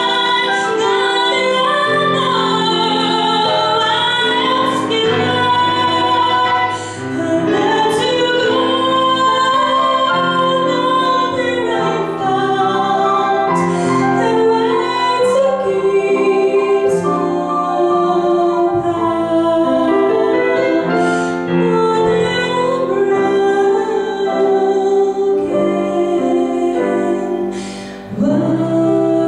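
A woman singing a song with digital piano accompaniment, the voice carrying the melody over sustained chords, with two short breaks in the phrases.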